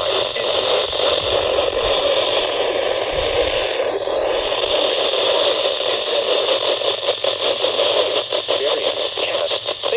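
Weather radio receiver putting out a steady hiss of static, with no voice on the channel. It starts to flutter rapidly near the end.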